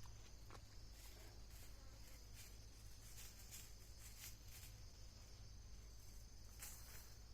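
Near silence with faint, steady high-pitched insect chirring and a few faint scattered ticks.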